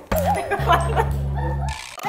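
Background music with a steady bass line, and a brief wavering call over it about a quarter second in.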